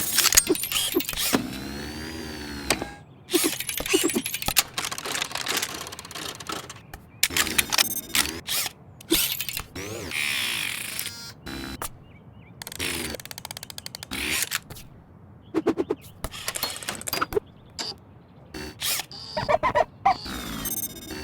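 A dense run of sound-designed mechanical effects: sharp clicks, clunks and ratchet-like clatter, with whirring whines that rise and then fall. Each effect stands in for a precise movement of a rifle inspection drill.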